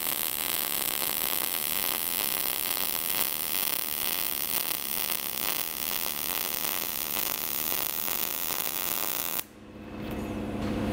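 Short-circuit MIG welding arc on thin 14-gauge sheet steel with .030 wire, running steadily as the weld is laid along an outside corner joint. It cuts off suddenly about nine and a half seconds in.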